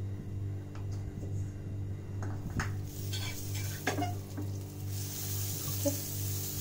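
A fork clicks a few times against a bowl and a non-stick pan as butter is scooped and spread. About five seconds in, the butter starts sizzling as it melts in the hot pan.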